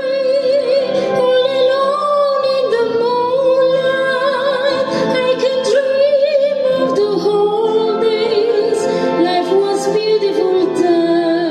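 Soprano singing in an operatic style with a wide vibrato, over sustained chords from a wind band.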